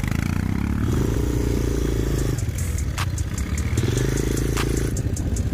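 Four-wheel ATV engine running and revving up as the quad is ridden over sand, its pitch rising twice, with a couple of sharp clicks.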